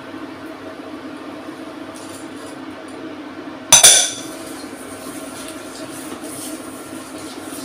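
A small ceramic bowl set down with a sharp double clink about four seconds in, the loudest sound, after which a silicone spatula scrapes softly, stirring butter, sugar and honey in a pan. A steady low hum runs underneath.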